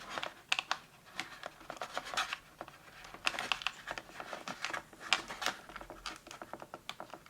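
Hands working at a toy's cardboard backing card and the fasteners that hold the figure to it: irregular clicks, scratches and crinkles of card and plastic being handled.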